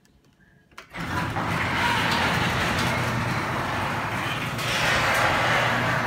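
Craftsman 1/2 horsepower chain-drive garage door opener, model 139.53985DM, starting about a second in and running steadily as it lowers the garage door: a steady mechanical noise over a low hum.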